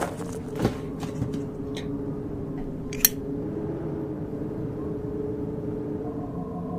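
A steady low ambient drone, with a few soft knocks and rustles as the cartoon character settles onto a throne and a single sharp click about three seconds in. A held synthesizer tone comes in near the end.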